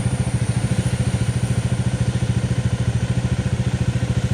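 Motorcycle engine idling steadily with an even, rapid beat.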